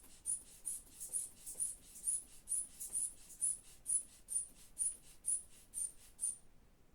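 The rubber inflation bulb of a manual sphygmomanometer is squeezed over and over at about two pumps a second, inflating the blood-pressure cuff for a second time. Each pump makes a short high-pitched sound. The pumping stops about six seconds in.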